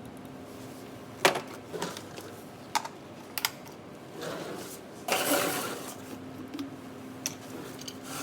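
Scattered clicks and knocks of small hard parts and tools being handled, with a longer rustling scrape about five seconds in, over a faint steady hum.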